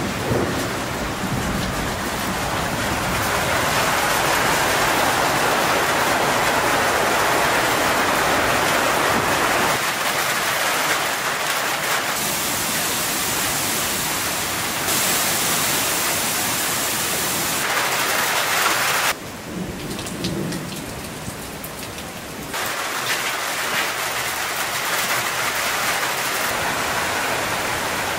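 Heavy thunderstorm rain pouring down, a dense steady hiss, with low thunder rumbling near the start. It drops quieter for a few seconds past the middle, then comes back up.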